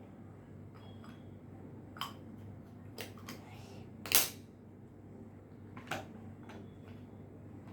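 Several sharp clicks and knocks of small plastic slime containers and lids being handled and closed, the loudest about four seconds in.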